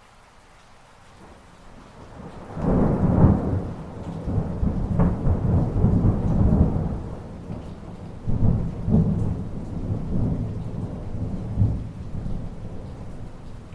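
Thunderstorm: a rolling peal of thunder builds over rain about two and a half seconds in, and a second rumble swells near eight and a half seconds before slowly fading.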